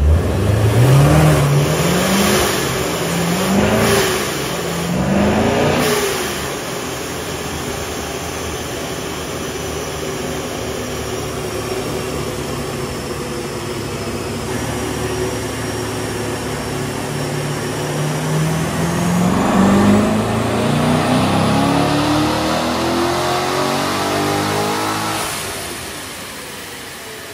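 Supercharged 2014 Corvette Stingray's 6.2-litre LT1 V8 making a dyno pull. Engine speed climbs in three short sweeps, holds steady, then climbs in one long wide-open-throttle sweep with a high whine rising in pitch alongside, and falls off near the end. The supercharger belt has just been re-tensioned to cure belt slip.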